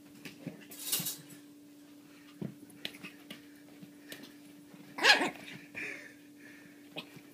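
Pekingese puppy giving one short yap about five seconds in, followed by a fainter whine, over light scattered knocks and a brief rustle about a second in. A faint steady hum runs underneath.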